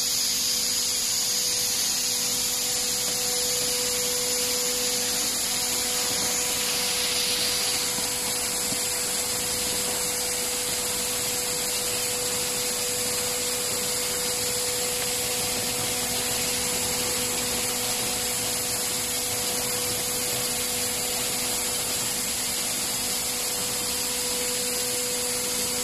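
Tube ice machine running during a factory test: a steady mechanical hum with a constant tone over a strong hiss, as cut ice tubes are discharged. The hiss eases slightly about eight seconds in.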